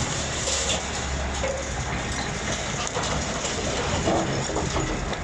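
Wheel loader's diesel engine running steadily as its bucket tips rubble into a dump truck, a continuous rumble with the rattle of debris.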